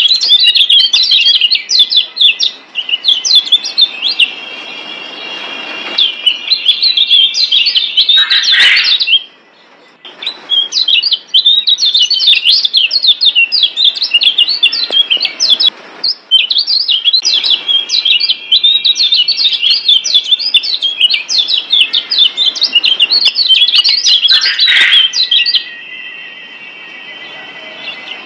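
Yellow white-eye (kecial kuning, a Zosterops) singing fast, dense runs of high chirps and trills in long phrases. The song breaks off briefly about nine and sixteen seconds in and drops away near the end.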